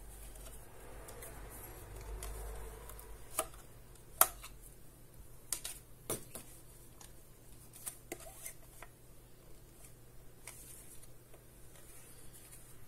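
Hands handling a monitor wall-mount arm: a soft rustle as the plastic cable tie binding it is worked off, then a few sharp clicks and knocks as the arm's parts are unfolded and moved, the loudest about four seconds in.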